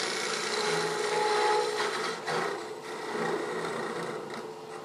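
Turning gouge taking peeling cuts from a spinning white maple box blank on a wood lathe: a steady hiss of shavings being cut over the lathe's hum, lighter toward the end.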